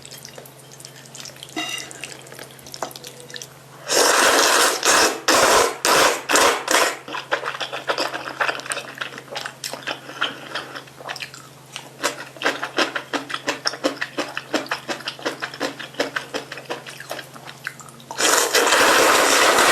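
Close-miked slurping of spicy fire noodles in loud bursts, about four seconds in and again near the end, with rapid wet chewing and mouth clicks between.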